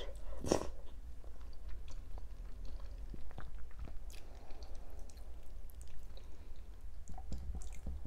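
Close-miked chewing and wet mouth sounds of someone eating dolma (rice-stuffed vine leaves), with scattered small clicks. A louder smack comes about half a second in.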